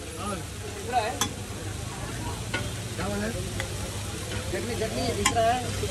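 Rows of Mysore masala dosas sizzling steadily on a large flat griddle, with metal spatulas giving a few short clicks and scrapes against the griddle, about a second in and again near the end.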